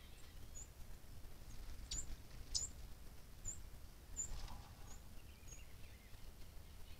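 Small songbirds giving short, high, thin chip calls, about eight spaced irregularly over several seconds, over a low rumble of wind or background noise.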